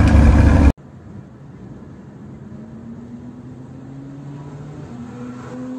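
A loud low rumble cuts off abruptly under a second in. Then a car engine hums quietly from inside the cabin, its pitch rising slowly as the car gathers speed.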